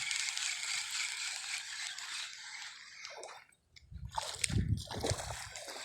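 A steady hiss for the first half, then a hooked snakehead splashing and thrashing in the creek water as it is brought in and landed, with irregular wet thuds.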